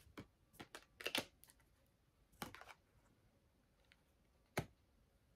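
Tarot cards being handled and laid down on a table: a few faint, scattered clicks and taps of card stock, with a sharper click near the end.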